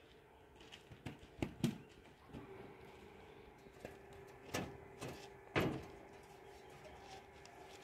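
A handful of sharp knocks and bumps against a tractor's sheet-metal bodywork as it is wiped down by hand with a cloth, the loudest about a second and a half in and again about five and a half seconds in, over a faint steady hum.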